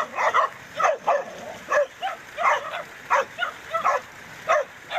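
Dog barking and yelping, short sharp calls coming about twice a second.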